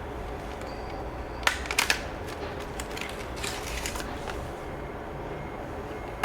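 A few sharp clicks and knocks of hard objects handled, the loudest cluster about a second and a half in and lighter ones around the middle, over a steady low hum.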